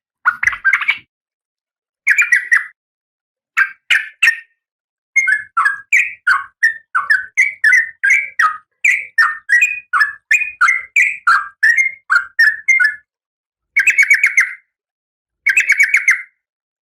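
Female Oriental magpie-robin calling: short bursts of quick notes, then a long run of rapid notes at about two a second from about five seconds in, and two more bursts near the end.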